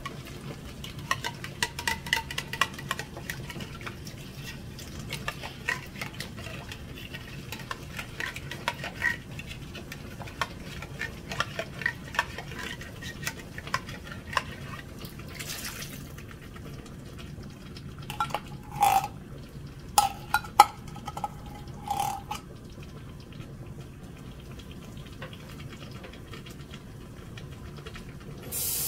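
Metal spoon scraping and stirring inside an emptied tomato can, a long run of small clicks and scrapes as the last of the tomatoes is worked out. About two-thirds of the way through come a few louder, ringing metal knocks.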